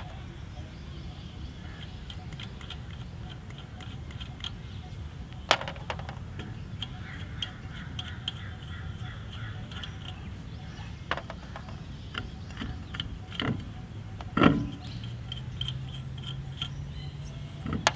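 Wheel nuts being taken off and put into the wheel cap: scattered light metallic clicks and clinks, with a few sharper knocks, over a steady low hum.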